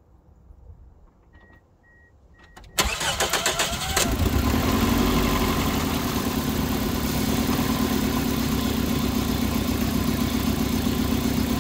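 Three short electronic beeps, then about three seconds in the starter cranks the 2003 Toyota Matrix's 1.8-litre four-cylinder engine. It catches about a second later and settles into a steady idle. It is running with a known bad ignition coil pack on cylinder 3, so it misfires and idles vibrating and acting strange.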